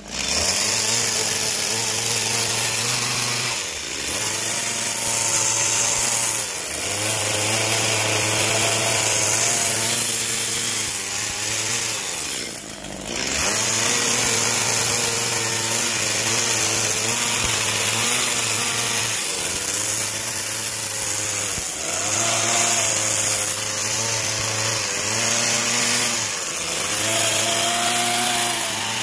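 Petrol chainsaw running at high revs while carving into a wooden log. Its engine pitch sags and recovers as the chain bites into the wood and eases off. The sound drops away briefly a few times.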